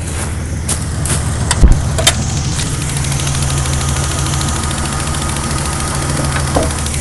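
4.0-litre engine idling with a fast, steady ticking over its hum: the lifter noise the owner is recording. A few sharp knocks, the loudest a low thump, come about a second and a half to two seconds in.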